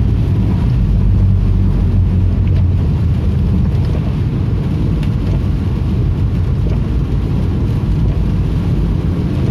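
Steady low rumble of a vehicle on the move: engine, tyre and wind noise.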